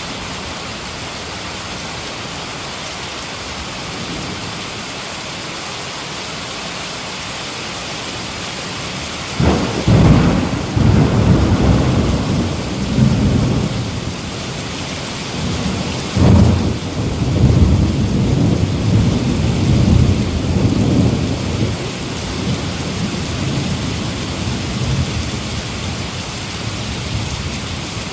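Heavy rain falling steadily, with two rolls of thunder: the first breaks suddenly about a third of the way in, the second a few seconds later, each rumbling on for several seconds before fading back under the rain.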